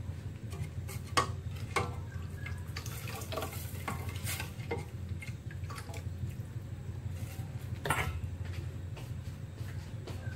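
Metal utensil stirring in a stainless steel pot, clinking and scraping against the pot in irregular knocks, the loudest about a second in and near eight seconds, over a steady low hum.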